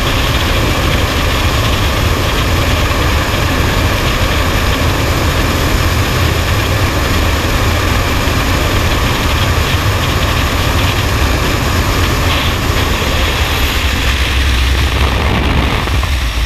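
Freefall wind rushing over a helmet-mounted camera's microphone, a loud, steady roar of buffeting air. Near the end the wind noise shifts in tone as the canopy opens above and the camera falls away from it.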